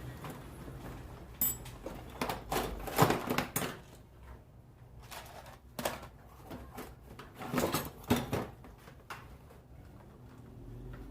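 Irregular clicks and knocks of small parts and tools being handled, some in quick clusters, with quieter stretches between.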